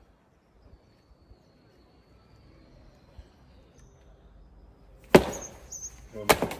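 Faint background, then two loud sudden smacks about a second apart near the end, from foam pool noodles whacking a person.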